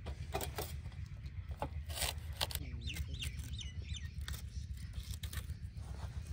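Cauliflower leaves being snapped and cut off the head with a knife: a run of crisp cracks and cuts. A bird calls a few times about halfway through.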